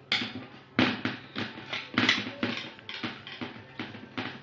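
Wire whisk beating a flour mixture in a plastic bowl, its wires tapping and scraping against the bowl about twice a second.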